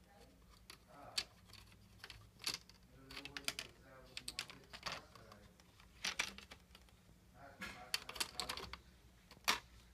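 Scattered small plastic clicks and snaps as a Dell Inspiron 1545 laptop's screen bezel is pressed back onto the display lid, its clips catching one by one.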